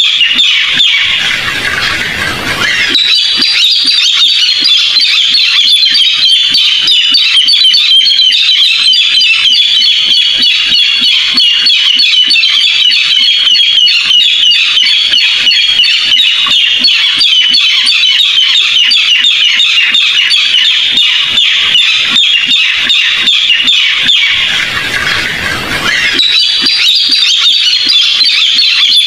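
Barred rail calling: a loud, continuous run of rapid, harsh notes, played as a call-sound lure. It is briefly broken twice by a short rush of noise, about two seconds in and again near the end.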